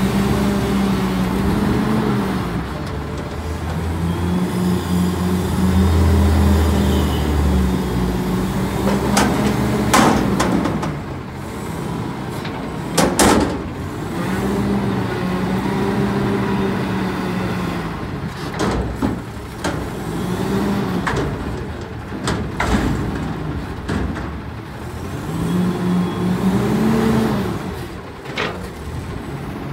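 Autocar front-loader garbage truck with a McNeilus body, its engine revving up again and again to drive the hydraulics as the forks lift a cardboard container over the cab, dump it and lower it. Two loud bangs come about ten and thirteen seconds in as the container is shaken out at the top, followed by lighter metal clanks as it comes back down.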